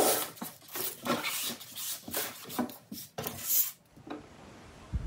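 Strips of kelp being handled and slid across a wooden tabletop by hand: a run of rustles, scrapes and small knocks. About four seconds in it stops and gives way to a faint steady hiss.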